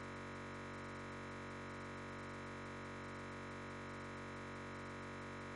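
Steady electronic drone of many held tones sounding together, unchanging, with a faint quick flutter repeating in the high range.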